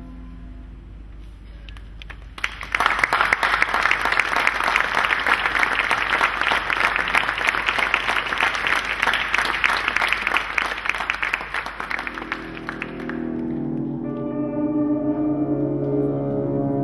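Audience applauding, breaking out about two and a half seconds in and fading out about ten seconds later. As the applause dies, slow music with long held low notes begins.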